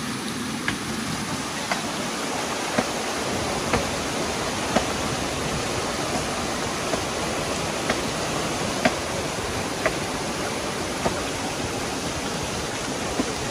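Rushing stream water, with sharp chopping blows on a tree trunk about once a second.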